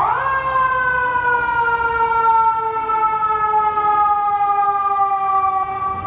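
Emergency vehicle siren, loud: it sweeps up sharply at the start, then holds a long wail that slowly falls in pitch, easing off near the end.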